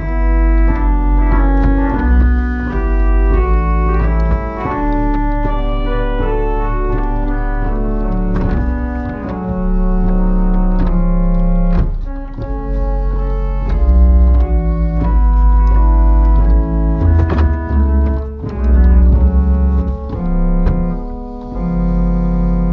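The 1871 Walker pipe organ playing a slow piece: held chords and a moving melody over deep pedal bass notes, changing about once a second.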